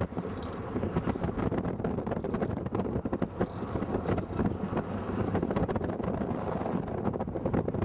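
A car driving, heard from inside: steady engine and road rumble with wind buffeting the microphone and frequent crackles.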